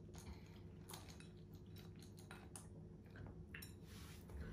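Near silence with faint chewing of sweets and a few soft, scattered clicks.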